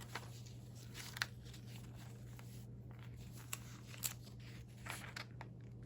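Faint rustles and light taps of old paper recipe pages and newspaper clippings being handled, a few separate soft clicks spread through, over a low steady hum.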